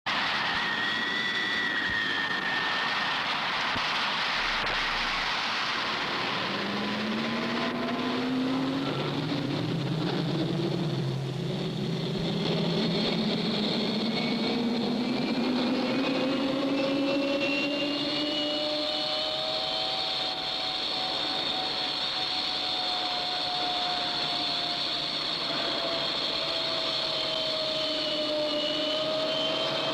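Jet aircraft engine noise: a steady rush with whining tones that climb slowly in pitch from several seconds in.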